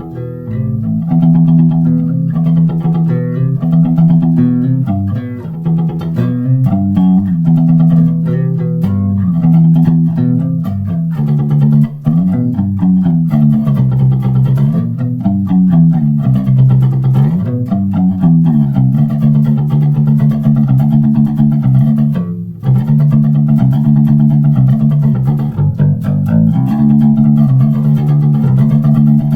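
Electric bass guitar played through a Boss flanger pedal: held low notes and chords with a slow, repeating whooshing sweep, the jet-like flanger effect. The playing breaks off briefly about three-quarters of the way through, then resumes.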